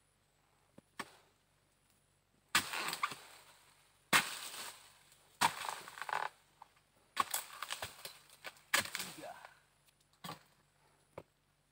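Sharp dodos chisel strikes cutting into the base of oil palm fronds. There are about seven chops at uneven intervals, a second or so apart, and each trails off briefly.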